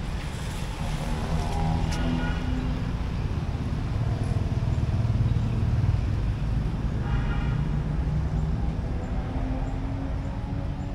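Road traffic: motor vehicles running past, a steady low rumble that swells and eases around the middle.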